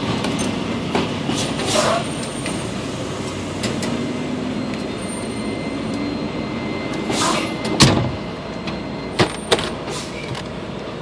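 Semi truck's diesel engine idling at a parking-lot entry gate, with a few sharp clicks. The loudest sound is a clunk about eight seconds in, around when the gate's barrier arm lifts.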